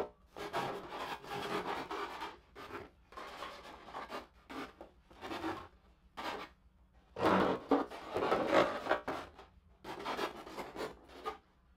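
A hand file scraping in repeated rasping strokes along the epoxy-coated wooden edge of a kayak cockpit, knocking down lumps along the rim. The strokes come irregularly, with a brief pause about six seconds in.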